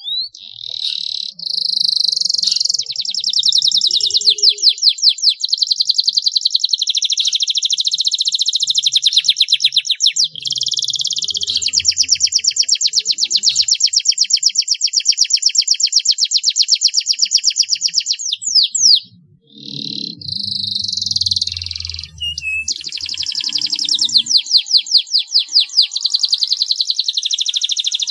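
Canary singing a long, loud song of fast trills and rolls, breaking off briefly twice, about ten and about nineteen seconds in.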